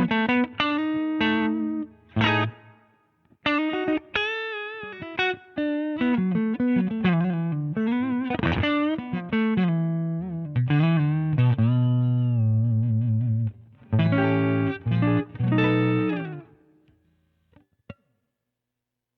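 Electric guitar played through a Danelectro Transparent Overdrive V2 pedal: a phrase of picked single notes and chords, some bent or shaken with vibrato. The playing stops about three-quarters of the way through, and the last notes fade, followed by a couple of faint clicks.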